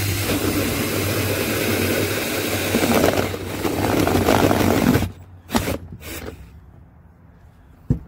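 Ryobi cordless drill at its lowest speed setting, driving a hole saw through the thin steel wall of a garbage can: a steady motor hum under loud grinding and scraping of the saw teeth on metal. The drilling stops abruptly about five seconds in, followed by a couple of light knocks and a sharp click near the end.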